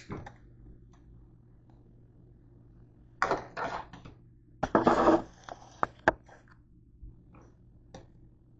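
Kitchen scissors snip through a grape stem at the start. The bunch of green grapes is then handled, with two spells of rustling and a few short sharp clicks.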